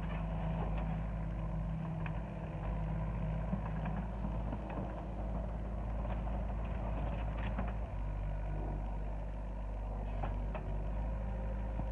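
Hyundai 60 mini excavator's diesel engine running steadily under hydraulic load as the boom and bucket work a demolition debris pile, its pitch shifting slightly a few times. A few faint knocks of debris are mixed in.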